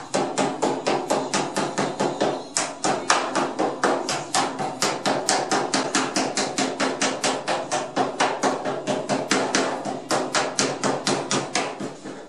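Hammer blows on the sheet-steel edge of a car door, a quick even series of sharp metallic knocks at about five a second, closing the folded flange of the door skin after it has been bonded with adhesive.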